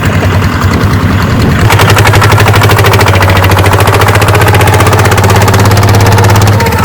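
Diesel engine of a Kubota DC-70G combine harvester running with a steady, fast, even throb. It gets louder about a second and a half in and holds there, with a brief dip near the end.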